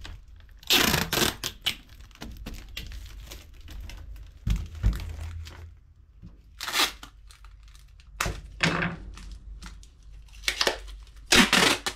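Tape being pulled and torn while packaging is sealed up, with crinkling of wrapping in several short bursts and a dull thump about four and a half seconds in.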